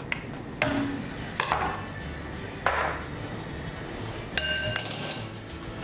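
Metal spoon and small bowl clinking and knocking against a saucepan as ingredients are scraped into the pot. There are several sharp knocks, and about four and a half seconds in one ringing metallic ping.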